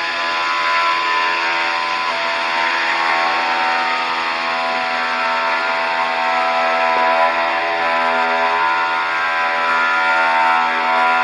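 Woodworking power machine running as it cuts timber to size: a steady motor whine with a hiss of cutting, its pitch shifting slightly as the load changes.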